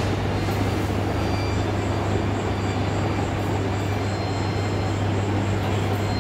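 Steady running noise of a moving road vehicle, a constant low hum under an even rushing noise.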